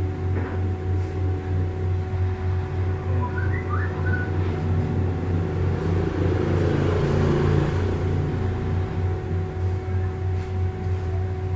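Background music: a low, evenly pulsing beat under held steady tones, swelling briefly near the middle.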